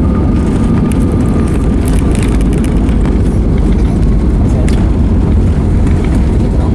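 Loud, steady rumble of engines and airflow in an Airbus A320neo's cabin near the wing, with scattered clicks and rattles from cabin fittings.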